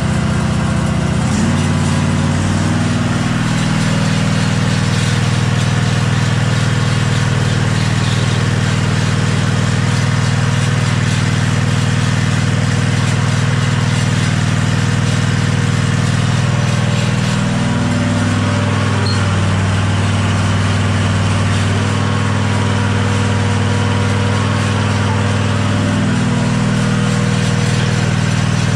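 Kawasaki V-twin engine of a Toro Dingo compact track loader, just started and running steadily. Its note rises shortly after the start and shifts a couple more times. The machine is being test-run after its hydraulic drive pump was replaced.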